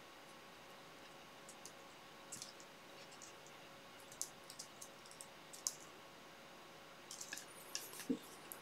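Faint, scattered small clicks and taps as fingers press and handle a black picture frame and its glass on a tabletop.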